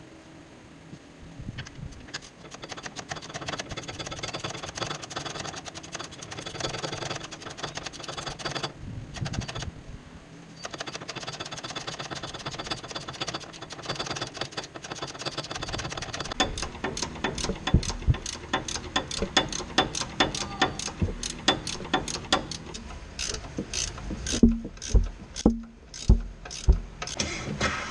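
Hand ratchet wrench clicking in rapid runs while working the suspension lower arm bolts, with a few sharper, louder knocks about twice a second near the end.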